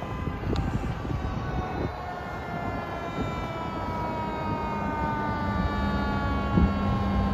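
Fire engine's Federal Q2B mechanical siren winding down, its pitch falling slowly and steadily, over traffic noise. A low steady drone joins about five seconds in.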